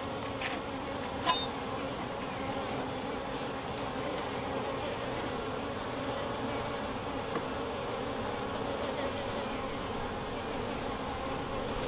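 Honeybees buzzing steadily over an open hive, a continuous hum. One sharp click stands out about a second in.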